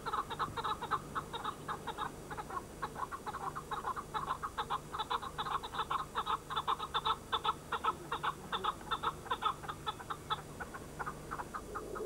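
Chukar partridges calling: a fast, continuous run of clucking 'chuk' notes, several a second, that stops shortly before the end.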